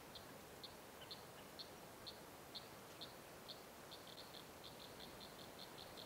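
Swallow-tailed kite calling: a faint series of short, high, thin notes, about two a second, quickening to a rapid run about four seconds in.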